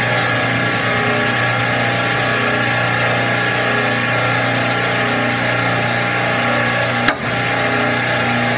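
Hydraulic press running with a steady mechanical hum as its ram crushes an aerosol can, with one sharp crack about seven seconds in.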